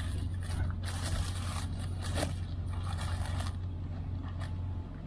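Paper food wrapper crinkling and rustling in the hands as it is unfolded, in several bursts. Under it runs a steady low hum that stops shortly before the end.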